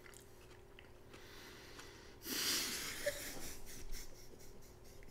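A woman's stifled, breathy laughter, starting about two seconds in.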